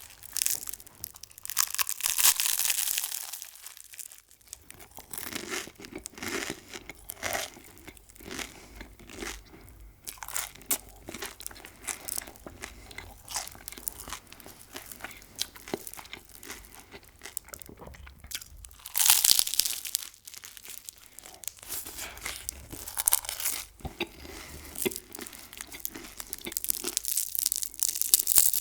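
Close-miked eating of crunchy food: several loud crunching bites, with wet clicky chewing in between.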